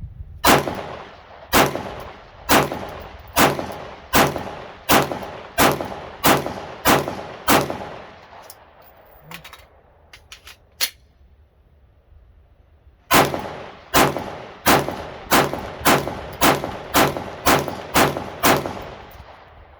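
Glock 19 Gen 5 9mm pistol fired in rapid strings, about ten shots at under a second apart. There is a pause of a few seconds with a couple of faint clicks, then another string of about ten quicker shots.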